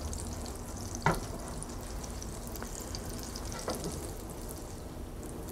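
Butter and olive oil sizzling and bubbling in a skillet on high heat as the water in the melting butter boils off. A light knock sounds about a second in.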